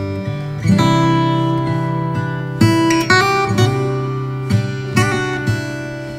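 Background instrumental music: plucked-string chords struck every second or so, each ringing out and fading.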